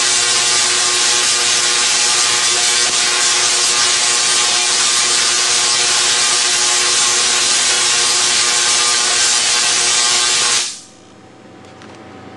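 SIDAC-fired solid-state spark gap Tesla coil running: a loud, steady buzzing hiss of discharge with a steady hum underneath. It cuts off abruptly about ten and a half seconds in.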